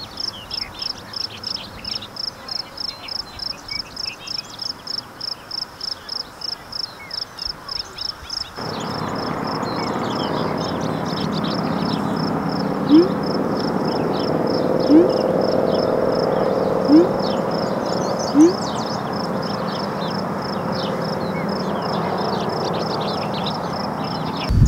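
Field ambience of insects chirping in a steady, fast high-pitched pulse, with a louder steady rush joining the background about a third of the way in. Four short rising blips, text-message sounds from the phone, come in the middle of the stretch.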